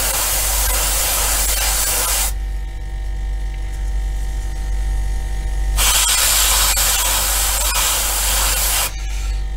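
Airbrush spraying weathering paint onto a model wagon's wheelset in two bursts of hiss, one of about two seconds and a second of about three seconds. A steady hum continues underneath and between them.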